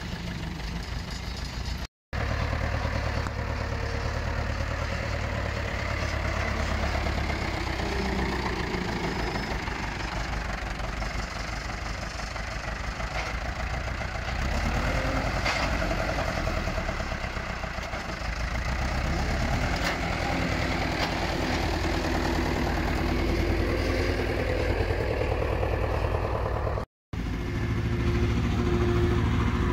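Tractor engine running steadily under front-loader work while round hay bales are lifted, its note shifting a few times. The sound drops out briefly twice.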